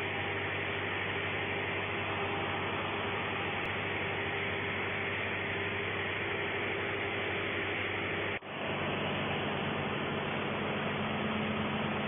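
Steady mechanical running noise of heavy machinery, a constant hum under a hiss. It breaks off abruptly about eight and a half seconds in and picks up again with a slightly different, deeper hum.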